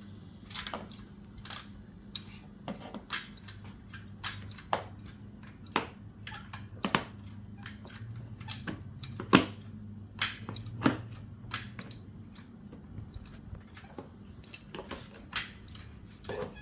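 Toy tools and a toy jack being handled against a toy car: irregular small clicks, taps and knocks, one or two a second, the sharpest about nine seconds in, over a faint steady low hum.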